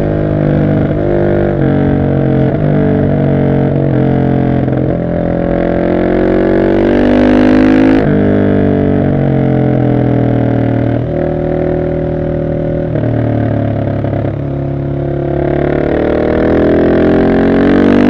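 Husqvarna 701 Supermoto's single-cylinder engine through a decatted Arrow exhaust, pulling hard under acceleration. The pitch climbs with the revs and drops at each upshift, loudest just before a shift a little before halfway. It eases off briefly about three quarters through, then climbs again near the end.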